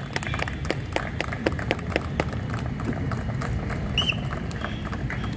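Irregular clicks and knocks of boots and rifles as commandos move into position in a weapon-handling drill on paved ground, over a steady low outdoor rumble. A brief high chirp comes about four seconds in.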